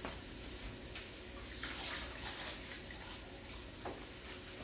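Beef short ribs searing in hot olive oil in a Dutch oven: a steady sizzling hiss with a few faint pops.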